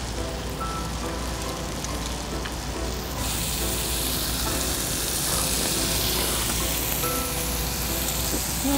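Beef sizzling on a tabletop grill pan, a steady hiss that gets louder and brighter about three seconds in.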